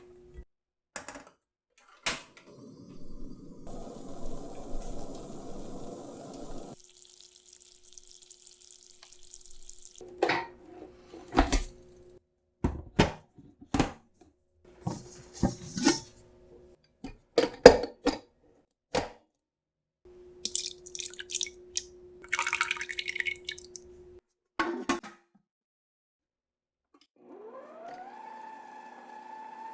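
Kitchen preparation sounds: a run of separate clinks and taps of utensils and dishes, with stretches of pouring or running liquid. Near the end a motor starts and rises in pitch, then holds steady.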